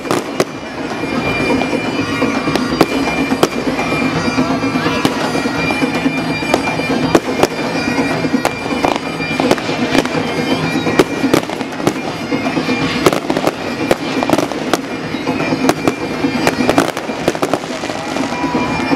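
Aerial fireworks going off in quick succession, a continuous barrage of bangs and crackling, over music with a steady drone.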